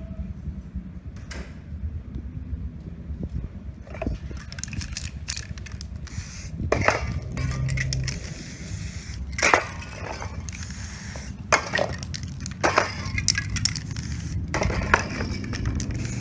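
Aerosol spray paint cans hissing in short bursts, with one longer spray near the middle, mixed with sharp clinks and knocks of metal cans being picked up and set down, over a steady low rumble.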